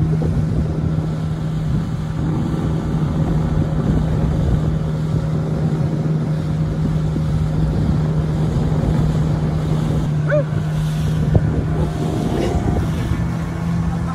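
Small motorboat's engine running steadily at one pitch over a low rumble, with wind buffeting the microphone.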